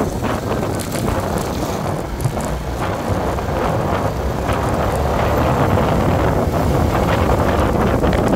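Steady wind rush buffeting the microphone while riding at speed, with the vehicle's engine and road noise underneath.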